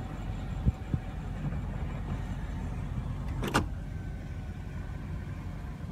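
Power rear window sunshade of a BMW Alpina B6 Gran Coupe being run by its small electric motor: a faint motor hum over a low steady background, with a sharp click about three and a half seconds in.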